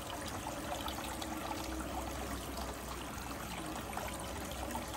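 Water running on a Desert Fox gold spiral wheel: a steady splash and trickle as the spray bar washes over the spiral and water pours off the rim, with small scattered ticks. A faint steady low hum sits underneath.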